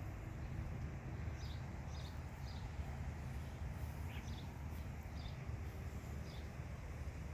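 Small birds chirping: short high chirps repeating about once or twice a second, over a steady low rumble.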